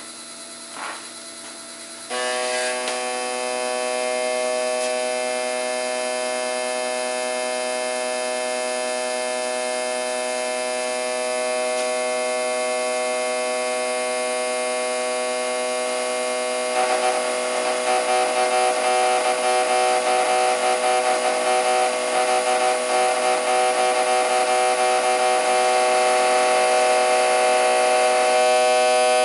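Bench of RC1200 low-impedance fuel injectors, driven by a resistor box at 2 ms pulse width, firing in a steady pitched buzz that starts suddenly about two seconds in. From about seventeen seconds in the buzz turns louder and rougher as the supply voltage passes about 11.5 V and the two weaker injectors begin to open.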